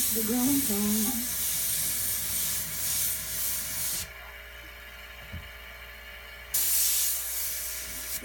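Iwata HP-BCS Eclipse airbrush spraying paint with a steady air hiss. It stops about four seconds in and starts again, louder, a couple of seconds later.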